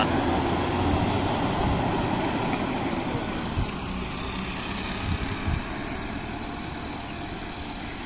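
Intercity bus's diesel engine running as the bus pulls away, the sound fading steadily as it drives off.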